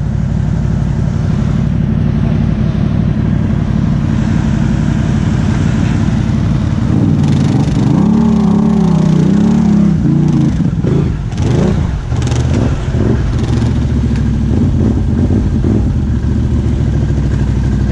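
ATV engines running under load as an orange ATV tows a mud-stuck Can-Am Outlander XMR 1000 out of a deep mud hole on a strap. The revs rise and fall from about eight to ten seconds in.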